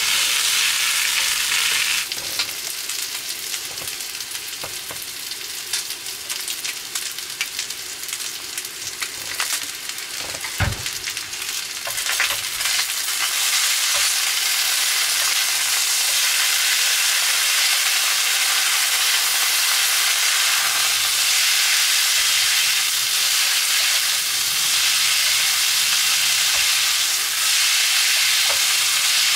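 Noodles and meat sizzling on an electric hot plate while being stirred and lifted with chopsticks. There are light clicks through the first half and a single dull thump about ten seconds in, and the sizzle grows louder and steadier from about twelve seconds in.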